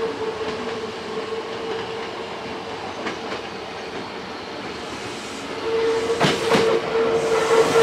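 Hankyu 8000 series electric train approaching, its wheels clacking twice over rail joints about six seconds in and the running sound growing louder near the end. A steady mid-pitched tone sounds underneath.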